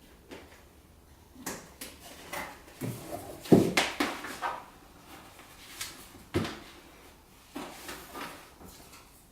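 Electrical cable being tidied and fastened inside a cardboard light box: an irregular run of knocks, scrapes and rustles, loudest about three and a half seconds in and again at about six and a half seconds.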